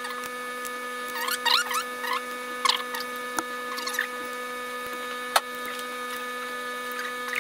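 Screwdriver turning screws on a motorcycle carburetor body, with a few sharp metallic clicks, the loudest about five seconds in. A string of short high squeaks comes in the first half, over a steady electrical hum.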